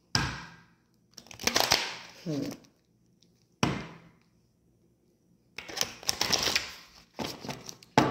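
Tarot cards being handled and shuffled: a few sharp slaps and short bursts of rapid papery clicking, separated by quiet gaps.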